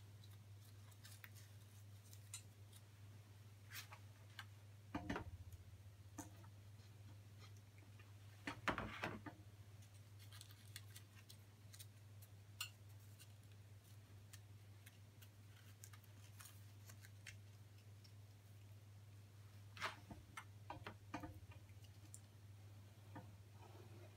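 Near silence over a steady low hum, broken by scattered faint crisp rustles and light taps as a paper-thin yosegi wood shaving is handled and pressed flat onto a board by hand. The loudest handling comes about nine seconds in, with another cluster around twenty seconds in.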